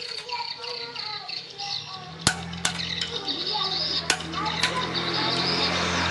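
Several sharp knocks or clicks at uneven intervals. About two seconds in, a steady low hum starts and runs under them.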